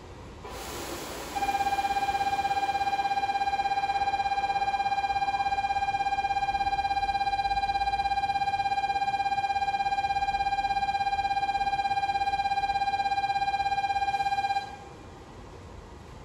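Station departure bell ringing before the train leaves: one steady electronic tone with a rapid flutter. It starts about a second in, rings for about thirteen seconds, and cuts off abruptly.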